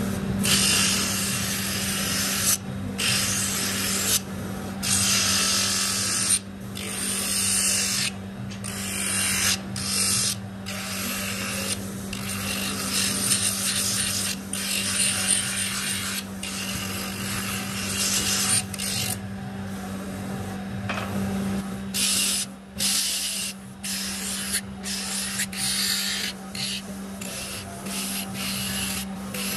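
Electric motor spinning a sanding drum with a steady hum, while a wooden spoon is pressed against the drum and lifted off again and again. The rasp of wood being sanded comes and goes every second or two.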